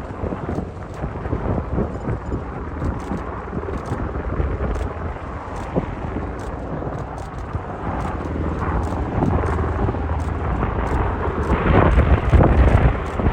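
Strong wind buffeting the microphone: a gusty, rumbling roar that grows louder in the last few seconds.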